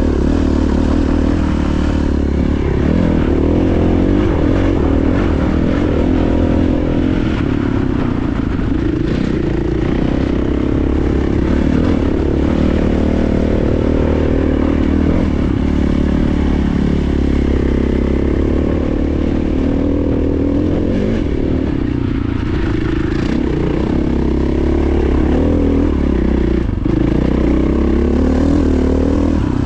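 KTM 500 EXC-F single-cylinder four-stroke dirt bike engine running under way, its revs rising and falling with the throttle, with a few short knocks along the way.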